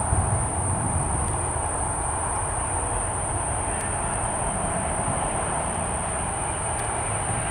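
Boeing 777-200 on final approach, its twin jet engines giving a steady low rumble and rushing roar as it closes in, with a constant thin high-pitched tone above it.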